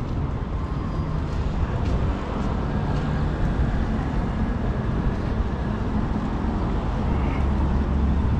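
Steady low rumble of road traffic, with no distinct passing vehicle standing out.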